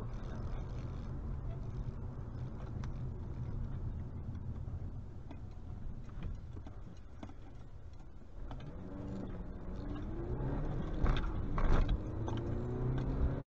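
Car engine and road noise heard from inside the cabin, a steady low rumble. About eight and a half seconds in, a pitched engine note rising and falling comes in over it, loudest around eleven to twelve seconds, then the sound cuts off abruptly.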